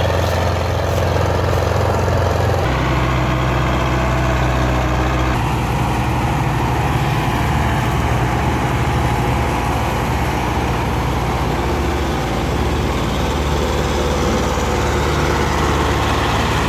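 Belarus tractor's diesel engine running steadily under load while hauling a trolley heavily loaded with sugarcane; its low drone changes pitch abruptly twice in the first few seconds.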